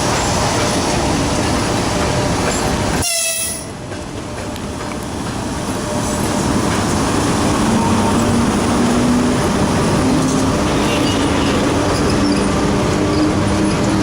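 EP1M electric locomotive pulling away with its train: a steady dense mechanical noise, with a brief tone about three seconds in. From about halfway through, a low hum rises slowly in pitch as the locomotive gathers speed.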